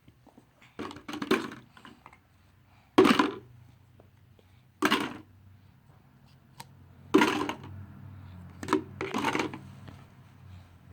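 A child making short, noisy mouth sound effects for pouring pretend tea: about six quick bursts, a second or two apart.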